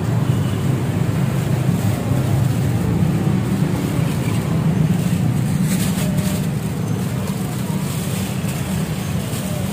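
A motor vehicle engine running steadily, a low even drone with road noise over it.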